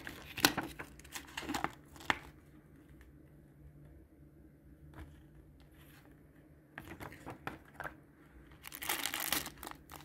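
Paper instruction leaflet and kit packaging rustling and crinkling as they are unfolded and handled. It comes in short bursts over the first two seconds, goes quiet in the middle, and rustles again near the end, loudest about nine seconds in.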